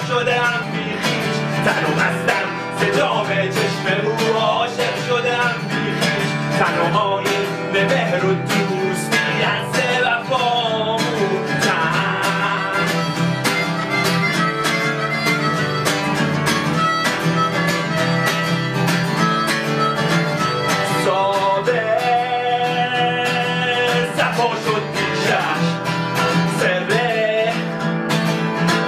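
Steel-string acoustic guitar strummed in a steady rhythm, with a harmonica playing a wavering melody over it.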